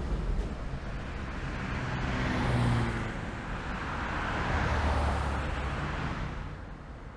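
Car driving on a road: steady tyre and engine noise that swells twice and fades away near the end.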